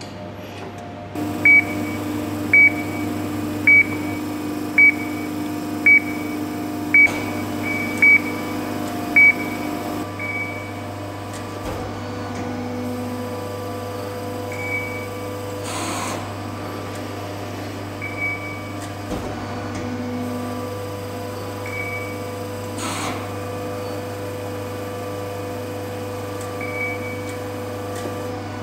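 Amada FBDIII-8025 hydraulic press brake running on test with a steady hum. Eight short high beeps sound about once a second during the first third; the hum's pitch changes about a third of the way in, and a few softer beeps and two brief clacks follow.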